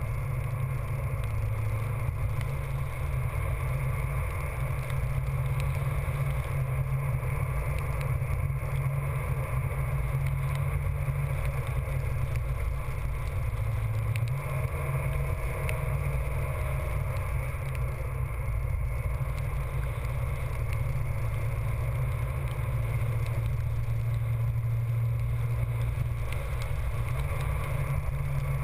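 A vehicle moving at a steady speed: a constant low drone of engine and tyres, with wind noise on an exposed, rain-spattered microphone.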